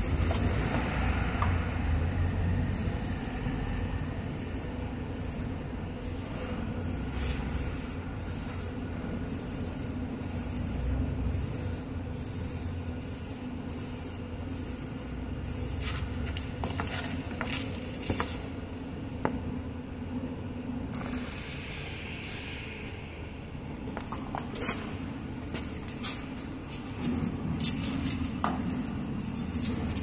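A hand wire brush scrubbing a bus's bare rear wheel hub and studs in quick, regular strokes, followed by scattered metallic clinks and taps in the second half. A steady low hum runs underneath.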